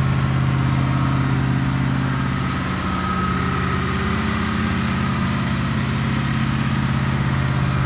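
1989 Dodge Power Ram's 360 V8 idling steadily through straight-piped side exhausts that exit in front of the rear tire.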